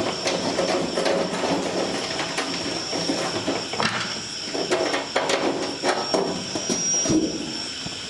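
Sheet-metal side panel of a desktop PC case being handled and slid shut: irregular clicks, taps and short metal scrapes, over a steady high whine.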